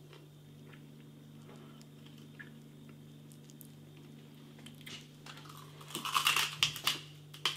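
A pork scratching being bitten and crunched: after several quiet seconds with only a faint steady hum, a run of loud, irregular crunches starts about five seconds in and lasts to the end.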